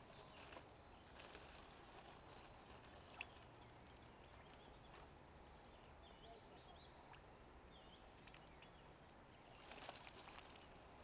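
Faint dabbling and splashing of a domestic goose and a mute swan feeding with their bills in shallow water, with scattered small clicks and a cluster near the end. A few faint high chirps come in the middle.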